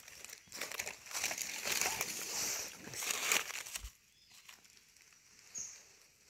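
Dry fallen leaves crunching and rustling as someone steps and crouches through thick leaf litter, for about three and a half seconds. Then it drops to a few faint rustles, with one short high note near the end.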